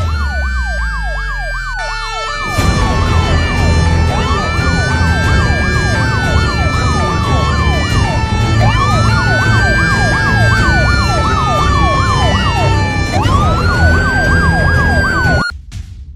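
Emergency-vehicle sirens: a wail that rises and slowly falls about every four and a half seconds, layered with a fast yelp, over dramatic music with a heavy low pulse that comes in about two and a half seconds in. Everything cuts off suddenly near the end.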